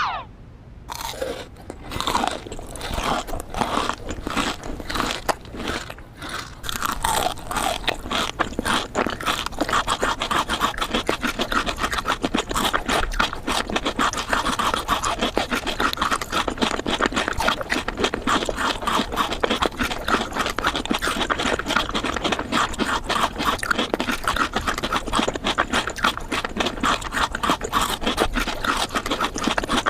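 Close-miked eating of Dubai chocolate: crunching and chewing, with the shredded kataifi-pastry filling crackling. Separate bites at first, then a dense continuous crunch from about eight seconds in.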